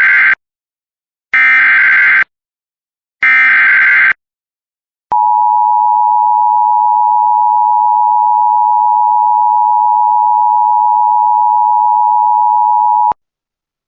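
Emergency Alert System SAME header: three bursts of screechy digital data, each just under a second long, followed after a short gap by a single long, steady attention tone of about eight seconds that cuts off sharply. It signals an incoming severe thunderstorm warning.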